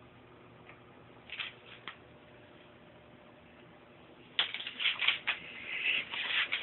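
Rustling and rubbing noise close to the microphone, likely from the handheld camera being handled: a couple of short scrapes early, then a dense, irregular run of louder rustles from about two-thirds of the way in.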